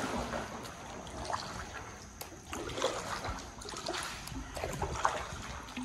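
Kayak paddle strokes in river water: the blades dip and splash, and water trickles and drips off them, with a few short sharp ticks among the splashing.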